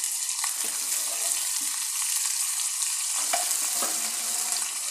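Minced beef and bell peppers sizzling in a frying pan under freshly poured canned chopped tomatoes: a steady hiss with a few faint clicks.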